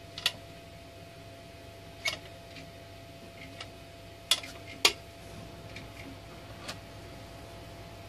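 Small plastic spring clamps handled and set in place on a deck: about five sharp clicks and knocks, the loudest two close together about four and a half seconds in, over a faint steady hum.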